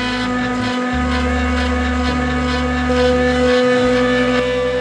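CNC router spindle running steadily while a V-bit carves painted MDF: a constant whine over a low hum that shifts pitch in steps every second or so.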